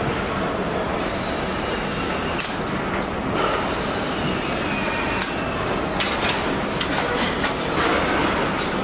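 Car assembly-line noise: a steady machinery rumble with scattered short metallic clicks and knocks.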